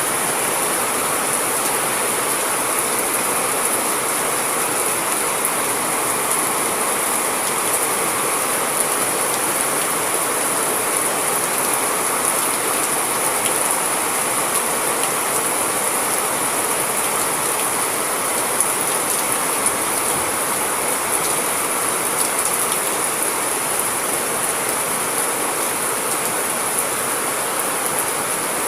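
Steady heavy rain falling, a dense even hiss with many small drop ticks throughout.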